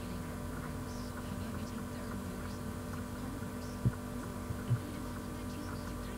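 Steady electrical mains hum in the recording, with two short dull thumps about four seconds in and just under five seconds in.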